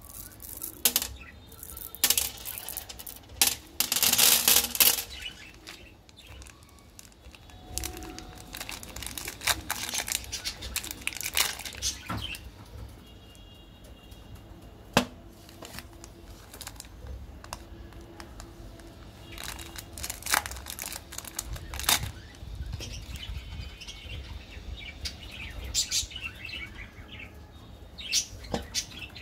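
Plastic candy wrappers crinkling and tearing as hands unwrap sweets, with scattered sharp clicks and taps of candy. The loudest part is a dense stretch of crinkling about four seconds in. Birds chirp faintly in the background.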